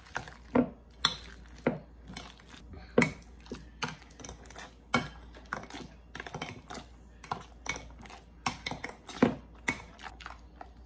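Metal potato masher mashing ripe bananas in a glass bowl, with squashing strokes and the masher clinking against the glass about twice a second in an uneven rhythm.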